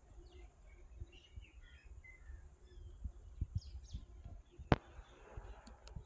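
Birds chirping faintly in short scattered notes, over low thumps. A single sharp click about three-quarters of the way through is the loudest sound.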